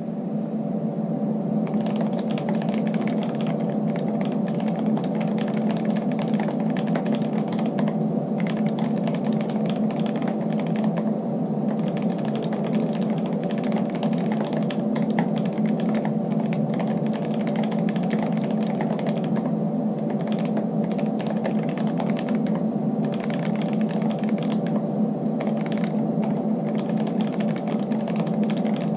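Mechanical keyboard with fully lubed Kailh Box Black linear switches and lubed stabilizers in a CNC aluminium case, typed on fast and without a break. The key strokes run together into a dense clatter from about two seconds in.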